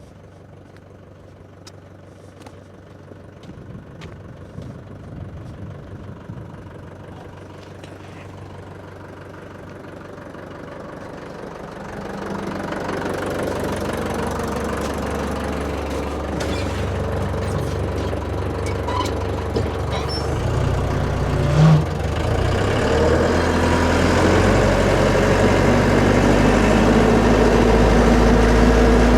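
A vehicle engine running, quiet at first and growing louder from about twelve seconds in, then settling into a steady hum near the end. A single sharp knock sounds about two-thirds of the way through.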